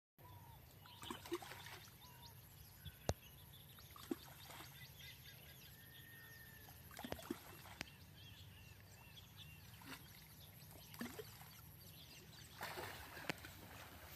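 Faint outdoor ambience of birds chirping over a low steady hum, with a few short splashes and sharp clicks of water as an elephant wades in a muddy pond.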